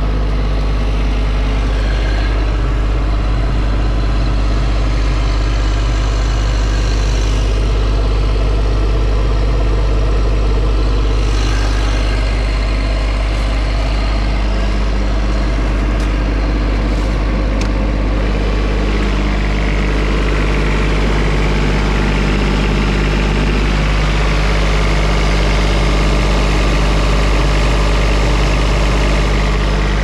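Bobcat MT55 mini track loader's diesel engine idling steadily.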